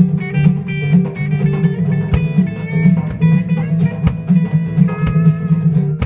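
A band playing: guitar over drum hits and a held low note.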